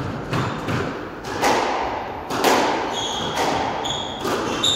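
Squash rally: a quick series of hard hits as the ball is struck by rackets and smacks off the court walls, each one echoing in the enclosed court. High squeaks of court shoes on the wooden floor join in during the second half.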